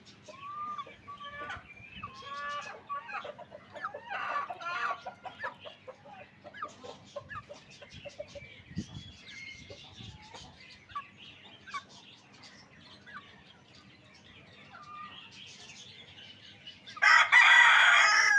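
Chickens clucking and giving short calls on and off, then a rooster crowing loudly near the end.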